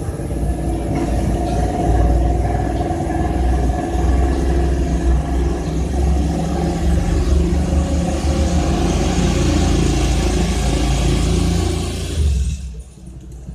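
An engine running steadily, growing louder with a rising hiss before cutting out suddenly near the end.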